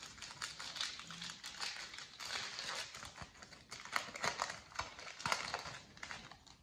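Crinkling and rustling of a foil Pokémon card pack being torn open and its cards handled, a quick irregular run of small crackles and clicks.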